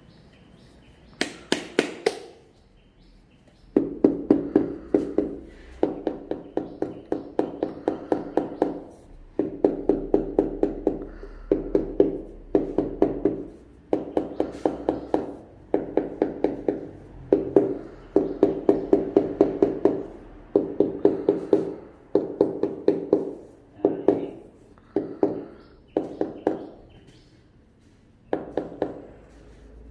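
Rubber mallet tapping hexagonal tiles down onto fresh tile adhesive, in quick runs of about five or six taps a second with short pauses between, each run with a ringing note.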